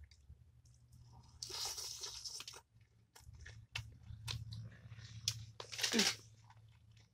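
Close-up crunching and chewing of hard-fried fish, with small scattered clicks. A longer crunchy burst comes about a second and a half in, and the loudest, shorter one about six seconds in.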